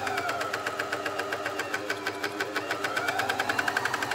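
Juki MCS-1500N coverstitch machine running steadily as it sews a row of stitches, the needles ticking in a rapid, even rhythm over the hum of its motor.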